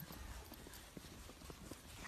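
Faint footsteps crunching in snow, a quick irregular run of soft steps, several a second.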